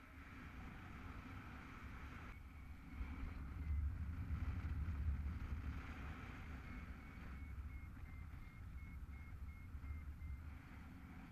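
Wind buffeting the microphone of a camera on a paraglider in flight: a gusty low rumble that swells about three to six seconds in. A faint, rapid, high-pitched beeping comes and goes over it in the second half.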